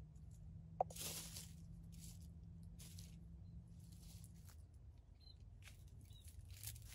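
Faint rustling of dry fallen leaves in short bursts, about once a second, as a wild junglefowl scratches and pecks through leaf litter. A sharp click comes about a second in.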